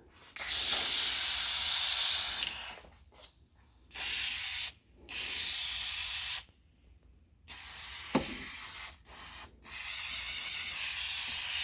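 Aerosol can of wet-type power-window cleaner spraying in about six hissing bursts of varying length, with short pauses between them, and a single sharp knock about eight seconds in. The spray is going onto the window's rubber seals, which are very dry and make the glass squeak as it moves.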